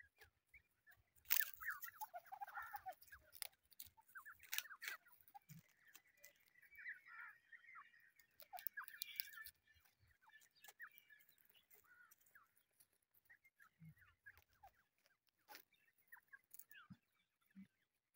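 A brood of young grey francolins giving many short, soft chirping contact calls while feeding, with a louder scratchy burst between about one and three seconds in.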